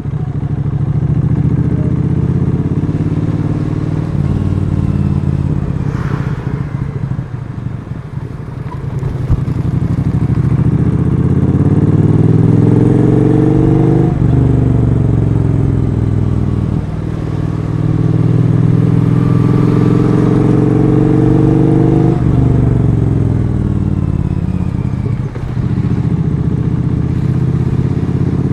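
Triumph Street Twin 900's parallel-twin engine under acceleration, its pitch climbing and then dropping sharply at each gear change, about four upshifts in a row.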